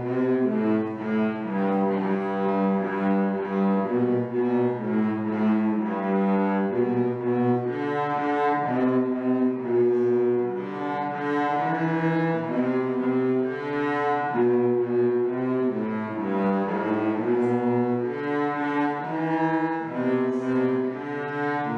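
Two cellos playing a traditional tune as a duet, a low line beneath a higher one, in bowed notes that change at a steady, even pace.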